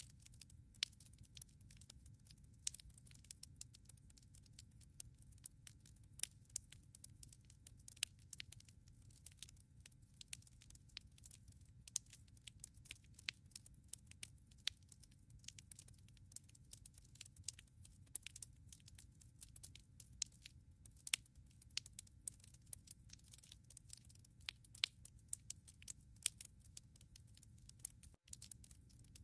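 Firewood burning in a fireplace, crackling quietly: frequent irregular sharp pops and snaps over a low, steady rumble of the flames.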